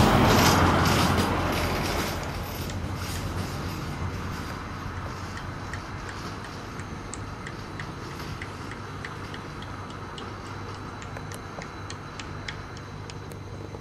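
Sharp, irregular ticks and taps of a hand tool chipping at the roof of a train car, over a steady low hum. A loud rush of noise at the start fades away over about two seconds.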